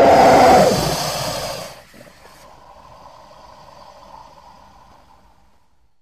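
Postosuchus creature sound effect: a loud call, already under way, that rises and falls in pitch and drops off after about two seconds into a much quieter tail that fades away near the end.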